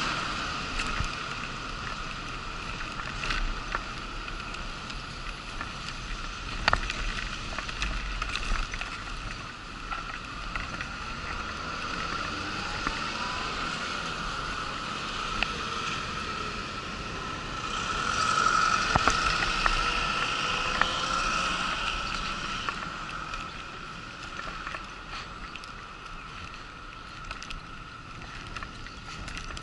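Wheelchair rolling over brick and asphalt paving: a steady high hum with scattered clicks and rattles as the wheels cross joints in the surface, growing louder for a few seconds just past the middle.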